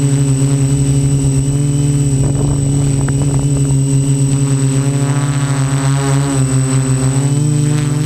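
Quadcopter's electric motors and propellers buzzing steadily, heard close up from the camera mounted on the craft, the pitch shifting a couple of times near the end as the throttle changes.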